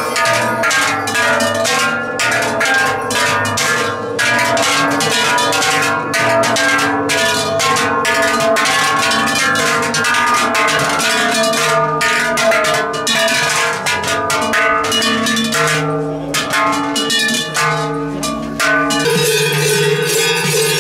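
Silvesterchlaus bells ringing continuously: large swung cowbells clang together with big round brass crotal bells jingling in dense, overlapping strokes. The ringing changes character near the end.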